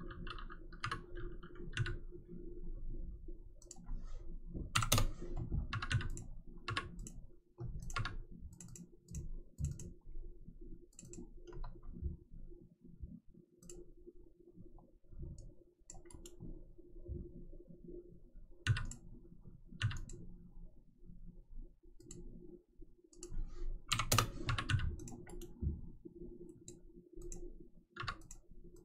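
Computer mouse and keyboard clicking at irregular intervals as pattern pieces are edited, over a steady low hum.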